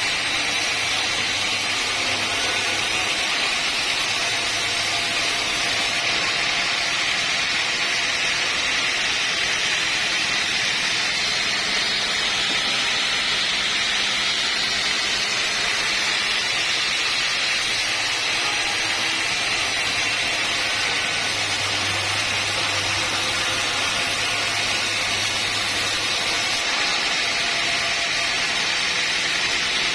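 Sawmill machinery running steadily: a constant, even mechanical noise with a faint low hum that comes and goes.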